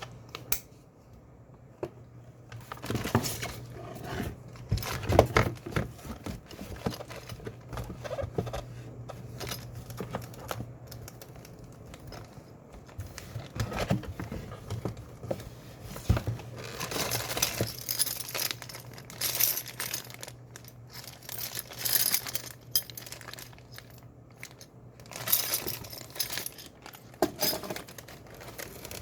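Packaging being handled and opened: plastic and cardboard crinkling and tearing in irregular bursts, with small hard parts clicking and clattering.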